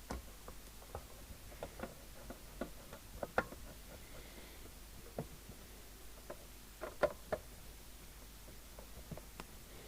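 Small irregular clicks and taps of hand-handling a CB radio's metal case and screws during reassembly, with a couple of sharper knocks about three and a half and seven seconds in.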